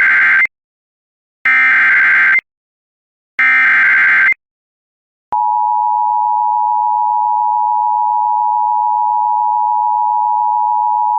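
Emergency Alert System SAME header: three short bursts of buzzing digital data tones about two seconds apart, then the steady EAS attention tone coming on about five seconds in, marking the start of a new warning.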